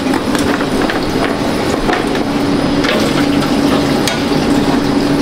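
Busy commercial kitchen noise: a constant machine hum over a steady wash of noise, with scattered small clicks and knocks.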